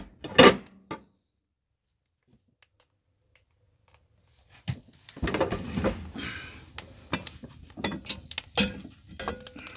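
Wood stove door clanking shut about half a second in, then a few seconds of silence. The door latch and handle are worked and the door opened with clanks and a brief metal squeak, followed by sharp knocks of the Dutch oven and its lid being handled in the firebox.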